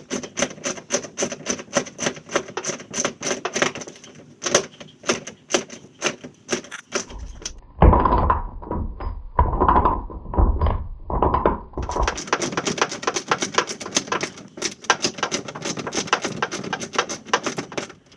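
Ratchet wrench clicking in quick, even strokes as the nuts are run down onto the anchor cleat's mounting screws. Between about 8 and 12 seconds the clicks give way to louder, booming knocks through the hollow plastic hull.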